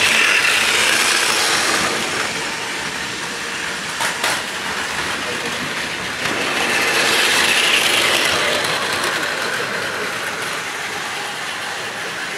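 Battery-powered Plarail toy trains running on plastic track: a steady whirring rattle of small motors and plastic wheels. It swells as an E5 Shinkansen toy passes close at the start, swells again about seven to eight seconds in, and has a couple of sharp clicks about four seconds in.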